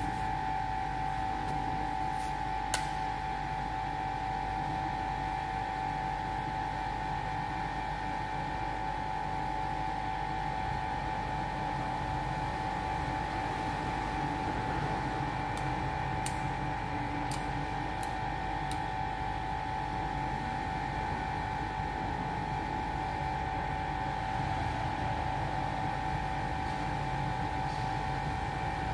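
Steady machine hum with a steady high whine running through it, and a few faint clicks about halfway through.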